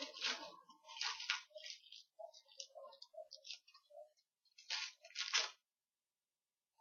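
Football trading cards being slid and flipped through by hand: short, dry rustling and scraping sounds, with two louder swipes about five seconds in.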